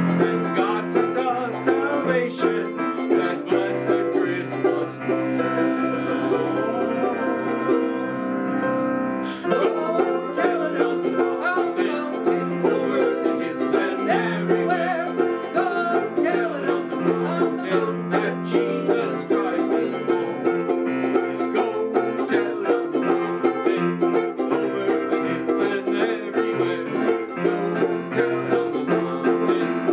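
Instrumental carol passage: a strummed ukulele with a digital piano playing along, without singing. About nine seconds in, a held chord gives way to a fresh run of strumming.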